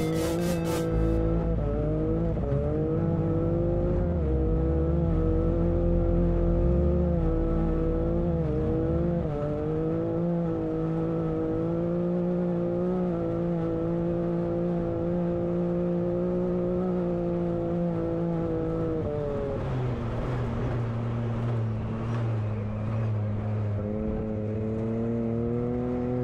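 Can-Am Maverick X3 side-by-side's turbocharged three-cylinder engine running steadily at speed. Its pitch drops about three-quarters of the way through as the machine slows, then slowly climbs again.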